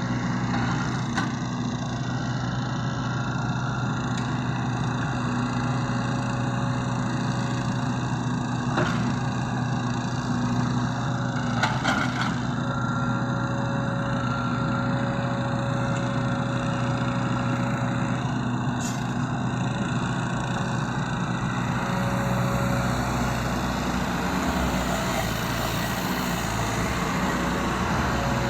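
Hydraulic excavator's diesel engine running steadily, with a few short knocks.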